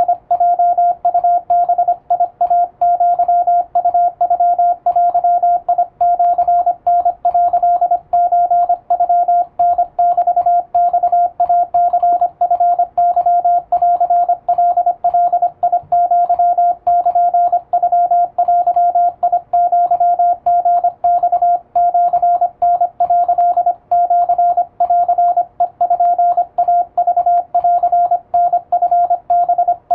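Morse code sidetone from an electronic keyer, a single steady tone keyed on and off in quick dits and dahs without a break, sending plain-language Japanese wabun Morse.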